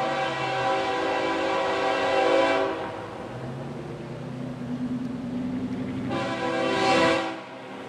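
Diesel freight locomotive's air horn sounding a multi-note chord. One long blast stops about two and a half seconds in, and a shorter blast starts about six seconds in, over the low rumble of the passing train.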